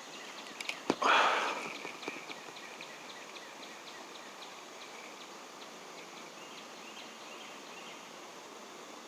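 A fishing cast: a few clicks, then about a second in a short loud splash as a buzz bait lands on the water near the bank. It is followed by a light, even ticking about three or four times a second as the lure is reeled back.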